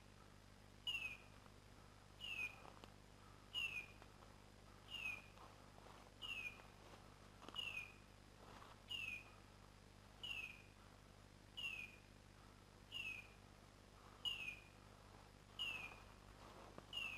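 Dog beeper collar sounding a short, high, falling electronic tone at a very regular pace, about once every 1.3 seconds: the locator signal of a setter working in woodland cover.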